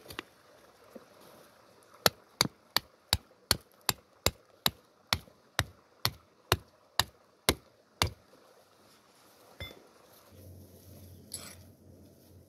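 A steel rod tent stake being hammered into the ground: about sixteen sharp strikes at a steady pace of roughly three a second, then a single knock.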